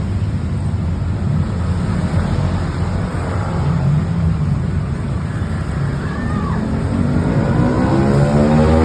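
Roadside traffic noise with engines running past, a large vehicle drawing nearer and getting louder toward the end.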